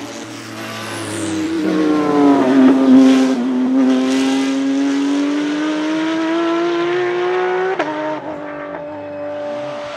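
Porsche 991 GT3 Cup's 4.0-litre flat-six racing engine passing and pulling away under acceleration. Its note dips as it goes by, then climbs steadily for about five seconds, cracks sharply at an upshift near the end and settles to a lower steady note.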